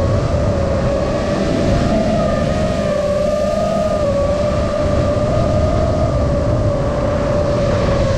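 FPV quadcopter's motors and propellers whining in flight, a steady tone that wavers slightly with throttle changes, over a constant rushing of air.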